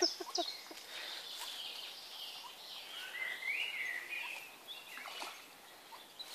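Quiet outdoor ambience with a few sharp ticks near the start, then a small bird singing faintly in the middle, with short gliding notes.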